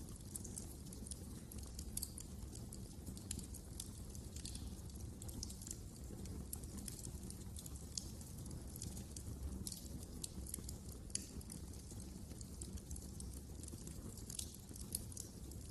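Wood fire crackling in a fireplace: many small, irregular pops and snaps over a low, steady rumble.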